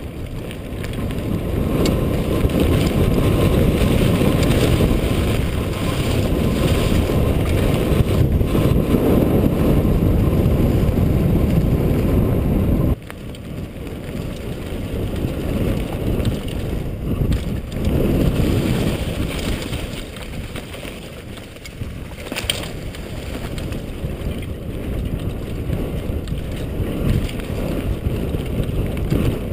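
Wind buffeting the on-body camera's microphone, mixed with the tyres of a mountain bike rumbling over a dirt trail at speed. The noise drops sharply about 13 seconds in, then builds again.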